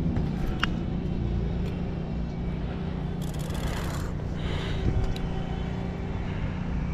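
Steady outdoor background with a constant low hum, like distant traffic, and a short rustle of handling about three seconds in.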